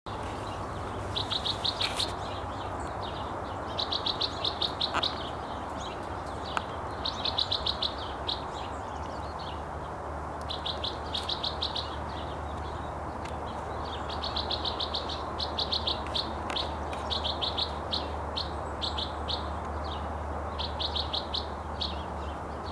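Bewick's wren singing: about seven quick, rapidly trilled phrases, each a second or so long, repeated every few seconds over a steady background hiss.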